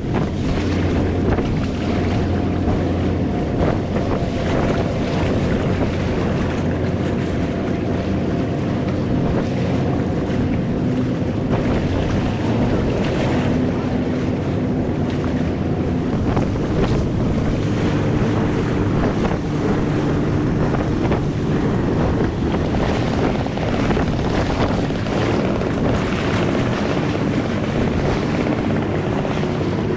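A boat engine running with a steady hum, under wind buffeting the microphone and the wash of sea water.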